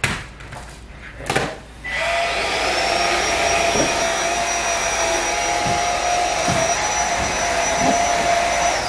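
New cordless stick vacuum starting up after a couple of clicks: its motor whine rises quickly to a steady high pitch over a rush of suction noise, then winds down with a falling whine as it is switched off at the end.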